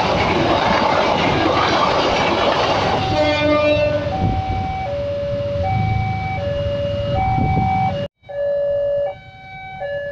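A passenger train rushing past close by, wheels on the rails, then a level-crossing warning alarm sounding a steady two-note electronic tone, alternating high and low about once a second. A brief dropout after eight seconds, after which the alternating tones go on.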